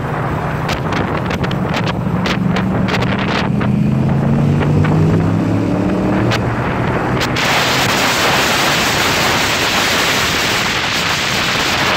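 Yamaha YBR 125's single-cylinder four-stroke engine pulling under way, its pitch rising over the first several seconds as it accelerates. About seven seconds in, loud wind rush on the microphone takes over and drowns the engine out.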